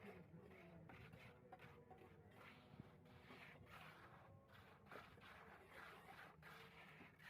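Near silence: faint background noise with a couple of soft knocks.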